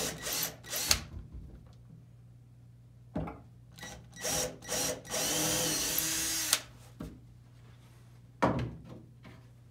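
Cordless drill boring small pilot holes into a wooden door for solid brass screws: a few short bursts, then a steady run of about a second and a half. A single loud knock comes near the end.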